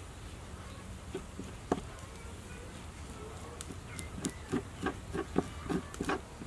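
A metal spoon scraping raw fish flesh off a fillet on a wooden chopping board. There is one stroke early on, then a run of short scrapes about three a second in the second half, over a faint steady low hum.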